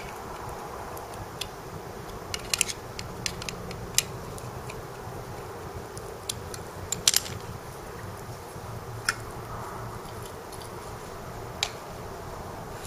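Screwdriver working the screws of a brush cutter's muffler cover: irregular sharp metallic clicks and taps of the tool against the screw heads and steel cover, over a steady low hum.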